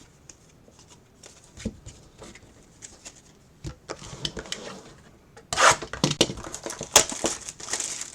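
Trading-card packaging being handled: a few light clicks and taps, then from about five and a half seconds in, loud crinkling and tearing of plastic wrapper as a card box is opened.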